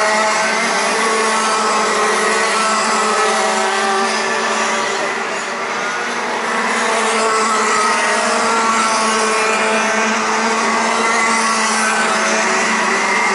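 Several Rotax Max 125 cc two-stroke kart engines racing around the circuit together. Their high, overlapping whines rise and fall as the karts accelerate and slow for corners, with a brief dip in loudness about five seconds in.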